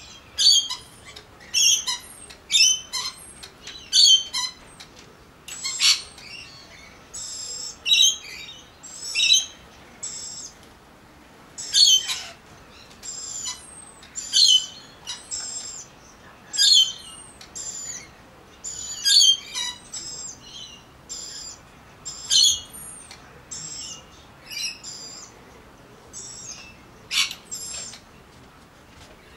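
Magpies calling repeatedly: short, high calls about once a second, sometimes in quick pairs.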